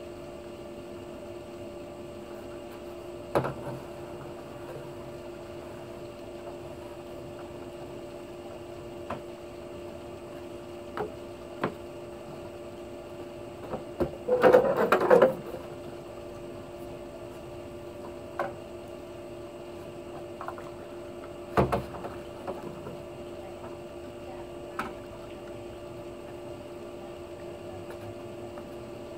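A steady hum runs throughout, with scattered knocks and clatter of a long pool-skimmer pole being handled on a wooden deck; the loudest burst of clatter comes about halfway through as the pole is laid down.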